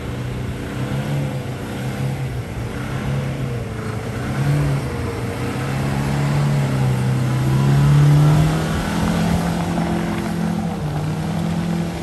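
Mercedes-Benz E-Class saloon's engine running under throttle as the car struggles for grip on packed snow, its rear wheel spinning and throwing snow. The engine note wavers and grows louder to a peak about eight seconds in.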